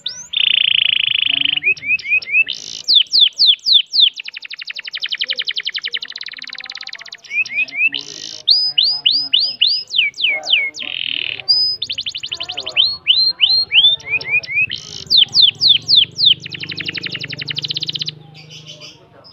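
Domestic canary singing a long, loud song of rapid rolling trills and quick rising-and-falling whistled notes, phrase after phrase with brief breaks between. The song breaks off about a second before the end.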